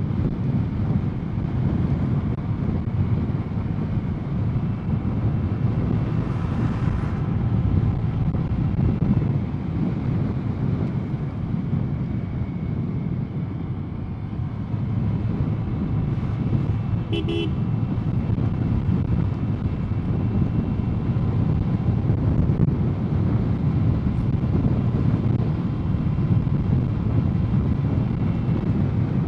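Wind rushing over the microphone of a moving motor scooter, a steady low rumble of wind and road noise. A single short horn toot sounds a little past halfway.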